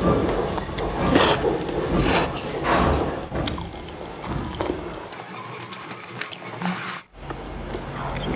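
Close-miked slurping of spicy instant noodles, several long slurps in the first three seconds, followed by quieter eating sounds with small clicks. The sound drops out for a moment near the end.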